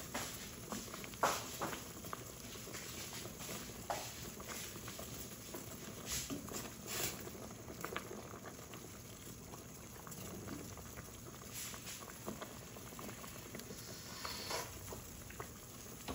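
Pot of fish broth at a rolling boil: steady bubbling with scattered sharper pops and clicks.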